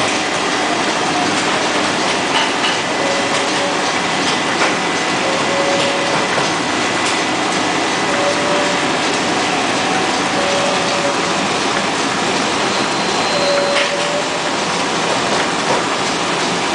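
Narrow-web flexographic label printing press running: a steady mechanical clatter from its printing units and rollers, with faint short tones recurring every two to three seconds.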